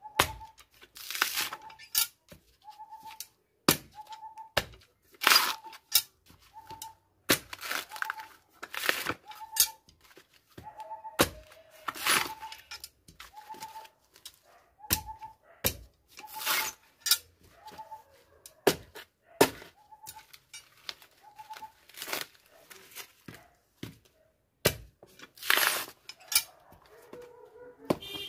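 Fibrous coconut husk being hacked and torn away from a sprouted coconut, a sharp ripping stroke every second or two.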